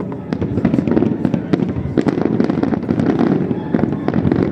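Fireworks display going off in a dense barrage: many sharp bangs and shell bursts each second over a continuous low rumble.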